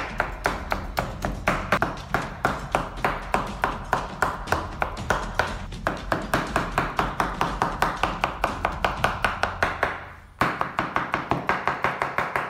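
Kitchen knife chopping soft roasted eggplant on a wooden cutting board: quick, even strokes about four a second, each a sharp tap of the blade against the board. There is a brief break a little after ten seconds in.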